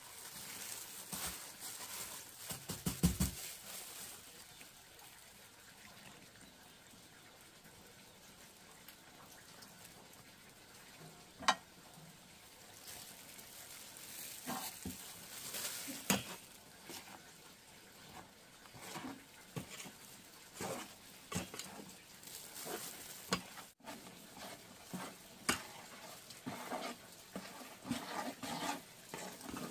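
Cooking sounds: a utensil stirring and scraping over a faint steady sizzle, with scattered clicks and a couple of sharp knocks.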